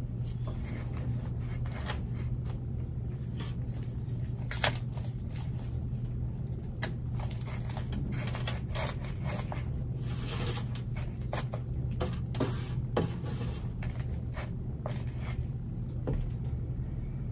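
Scattered scrapes, rustles and clicks of gloved hands handling a plastic pot holding a repotted orchid and its bark mix, over a steady low hum.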